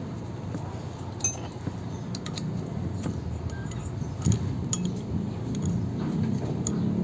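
A small metal wrench clinking against the bolts of a pressure washer's pump head as they are tightened, with scattered sharp metallic clicks, the loudest about four seconds in, over a steady low rumble.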